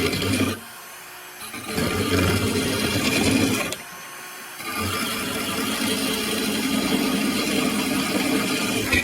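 Electric drill spinning a blade-sharpener grinding stone against a steel lawnmower blade, a steady grinding whir that drops off briefly twice and then stops at the end.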